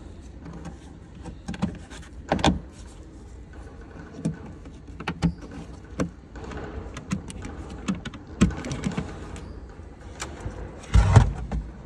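Plastic boot trim panels and their clips being handled and pressed back into place: scattered clicks and knocks with rustling between them, and a louder knock near the end.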